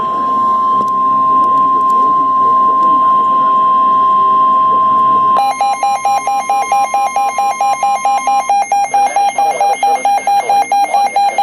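NOAA Weather Radio's 1050 Hz warning alarm tone, one steady loud tone, announcing that a warning is about to be read. About five seconds in, a rapid electronic alert beep joins it at about six beeps a second. The steady tone stops about three seconds later while the beeping carries on.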